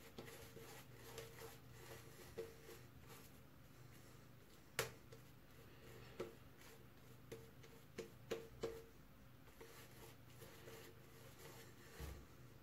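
Faint squishing and brushing of a silvertip shaving brush working lather over a bearded face, with a few soft clicks, the loudest about five seconds in and several more around eight seconds, over a low steady hum.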